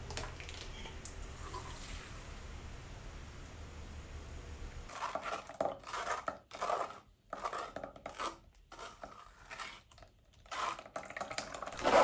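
A metal spoon stirring and scraping fermented cayenne pepper sauce through a stainless fine mesh strainer, in irregular strokes with short pauses, starting about five seconds in after a stretch of steady low hum.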